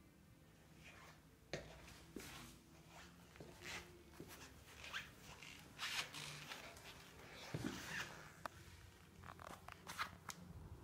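Faint, irregular rustling and rubbing strokes of hands massaging a long-haired dog's coat, with a few sharper scrapes.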